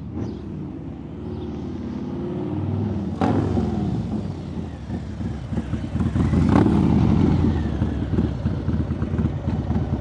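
Harley-Davidson Low Rider ST's Milwaukee-Eight 117 V-twin approaching, growing louder as it rides up and passes close by about six to seven seconds in, then running at low speed as it pulls up. A single sharp click about three seconds in.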